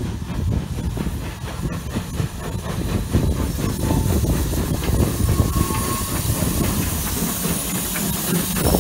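Steam locomotive pulling its passenger coaches slowly out of the station, with low rumbling and steam hissing that grows louder over the last few seconds as the engine passes close.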